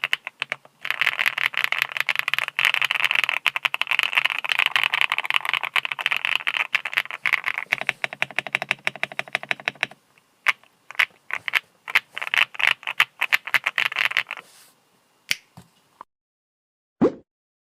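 Typing on a JamesDonkey A3 gasket-mount mechanical keyboard with a polycarbonate plate: a fast, continuous run of keystrokes, then shorter bursts, then a few single key presses. A brief separate sound comes near the end.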